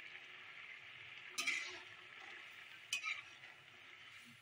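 Milky curry gravy simmering in a steel kadai with a faint steady bubbling hiss, and a metal spatula scraping through it against the pan twice, about a second and a half in and again about three seconds in.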